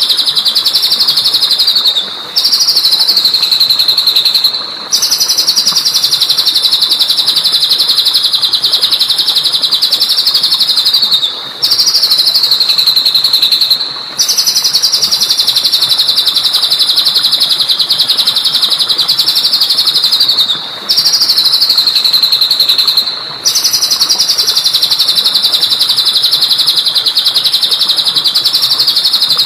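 Recorded songbird song played in a repeating loop: a high, rapid trill in phrases of a few seconds, each ended by a brief break, the same pattern coming round again and again. It is training song, played so that caged birds will copy the phrases.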